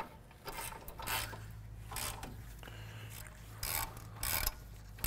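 Socket ratchet clicking in short strokes as the 21 mm caliper bracket bolts are run in: several brief rasping bursts at uneven intervals, the loudest in the last couple of seconds.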